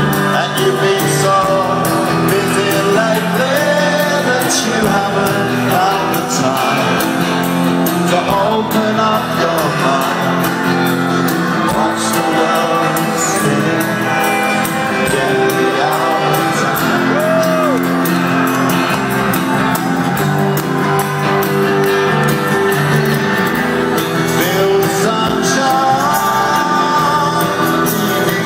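Live rock band performance with electric guitars, drums and a sung vocal, played loud over a concert sound system and heard from within the crowd.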